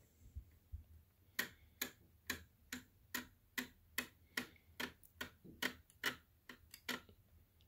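A steady run of light, sharp clicks, about two a second, starting a little over a second in.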